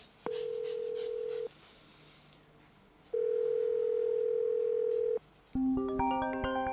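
Telephone ringback tone of an outgoing call: two long steady beeps, the second longer. About five and a half seconds in, a mobile phone ringtone starts playing a melody.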